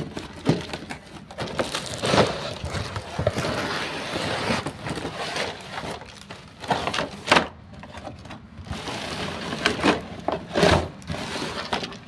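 Toy-car box and its packaging being handled and pulled apart: irregular rustling and crinkling with several sharp knocks and clicks.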